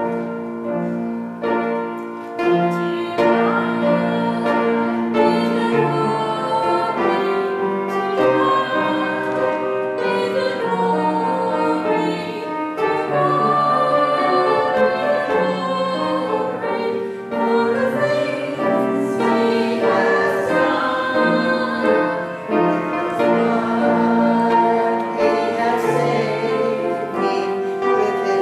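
Church offertory music: piano with singing, slow, with long held notes.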